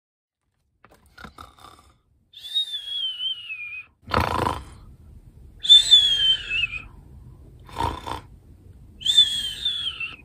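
A woman's pretend cartoon snore: a snoring breath in, then a high whistle falling in pitch on the breath out, three whistles in all.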